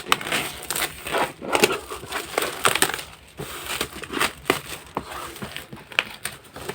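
Packaging being torn open and crumpled by hand: irregular crackles and rustles of the wrapping as the magazine package is opened.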